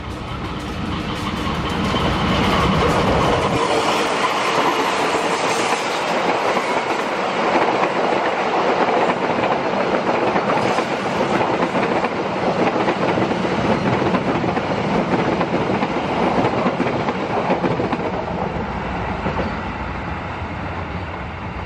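A passenger train passing at speed. A diesel locomotive's engine rumble goes by in the first few seconds, then the carriages' wheels clatter steadily over the rails, easing off near the end as the train moves away.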